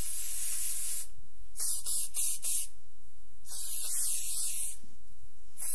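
Spray can hissing in repeated bursts of about a second each, four sprays with short gaps between them, sprayed to cover a bad smell.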